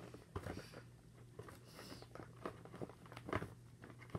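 A cardboard toy box being handled: scattered light taps, scrapes and rustles, the sharpest about three seconds in, over a faint steady low hum.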